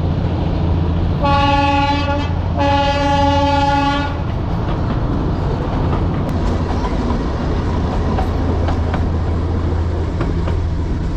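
Darjeeling Himalayan Railway toy train's steam locomotive whistle sounding two single-note blasts about a second in, the second a little longer than the first. Under it is the steady low rumble of the train running.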